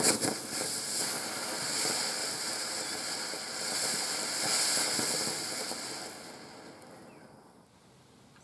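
Category F1 ground fountain firework burning: a steady hiss of spraying sparks and stars, opening with a sharp crack, then fading out over the last couple of seconds as the fountain burns down.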